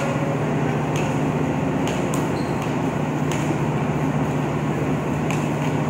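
Steady drone of a ship's machinery and ventilation on an enclosed vehicle deck, with a strong low hum. A few sharp knocks from the basketball game stand out over it.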